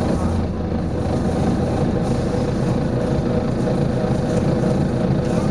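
Volvo B9TL double-decker bus's six-cylinder diesel engine running steadily, a constant hum with no change in pitch.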